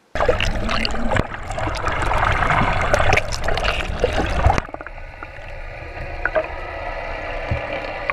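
Underwater camera sound: rushing, bubbling water with many small clicks and crackles over a low rumble. About four and a half seconds in it cuts to a quieter, steadier underwater sound with faint steady tones.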